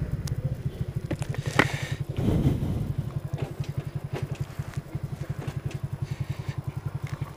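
Small motor scooter's engine idling with a fast, even putter after the rider slows to a stop. A sharp click about a second and a half in stands out above it.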